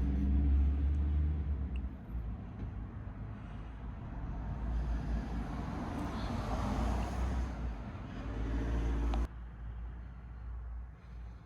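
Classic Fiat 500's air-cooled two-cylinder engine, freshly overhauled and bored out to 750 cc, running with a steady low rumble. The sound cuts off abruptly about nine seconds in, leaving a quieter rumble.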